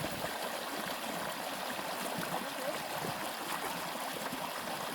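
A clear, shallow river running over its stones at a crossing, with a steady rush and light gurgling.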